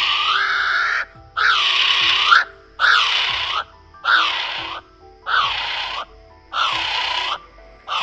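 Kiwi calling: a long, loud, high cry that ends about a second in, followed by a steady run of short cries, each under a second long and sweeping up in pitch at its end, about one every 1.2 seconds.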